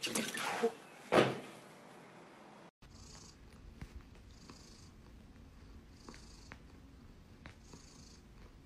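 A short knock about a second in, then a tabby cat purring faintly, the purr swelling about every second and a half with its breaths.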